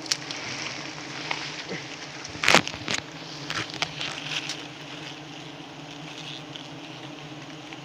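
Wild honeybees buzzing in a steady hum around their comb, with a few sharp knocks and plastic rustles from the comb being cut into a bag, the loudest about two and a half seconds in.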